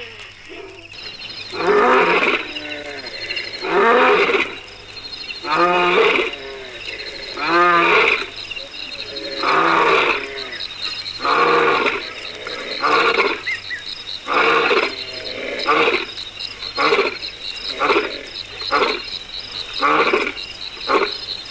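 A lion roaring: a bout of long roars about every two seconds, turning into shorter, quicker grunts from about twelve seconds in. Crickets chirp steadily behind.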